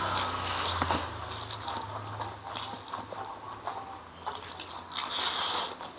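Wet, sticky sounds of a bare hand gathering oily Aceh-style fried noodles and stuffing a handful into the mouth, with chewing; the loudest wet rustle comes near the end.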